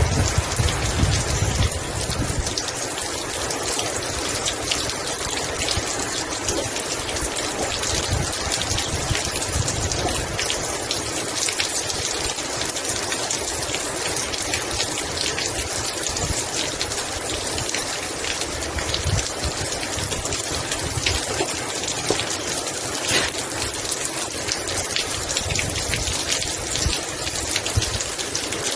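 Heavy rain falling steadily, with many separate drop hits close by over a dense wash of rain.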